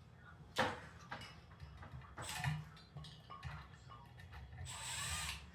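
Scattered sharp clicks and rustles of hands working with tools and fan parts: a loud click about half a second in, a rustle in the middle, and a longer hissing rustle near the end.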